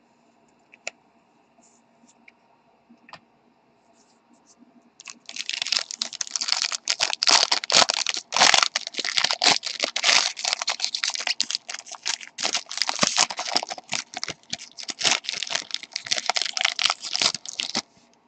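Trading cards and their packaging being handled: after a few faint clicks, a dense run of quick rustling, crackling flicks starts about five seconds in and goes on for about thirteen seconds.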